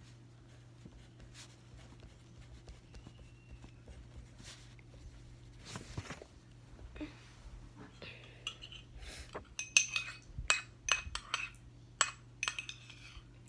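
Faint handling rustles, then from about eight seconds in a run of irregular sharp clinks of hard objects against a ceramic cup, over a faint steady hum.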